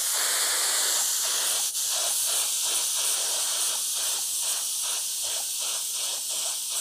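Paint spray gun hissing steadily as it sprays paint on compressed air from a gas-cylinder tank charged to about 4 bar by an old fridge compressor. There is one short click about two seconds in.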